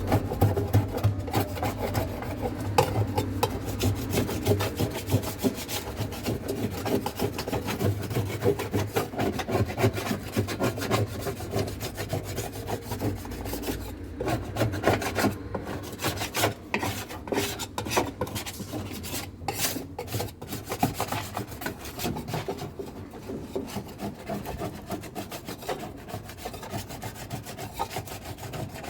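Continuous rough scrubbing in rapid strokes, as dirty washing machine parts are cleaned.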